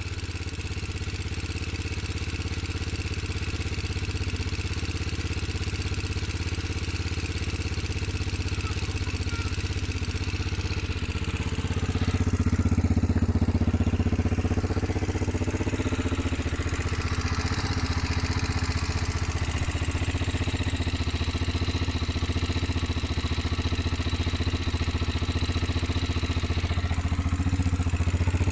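Yamaha TT-R125's single-cylinder four-stroke engine running steadily at a low, even speed, getting somewhat louder about twelve seconds in and holding there.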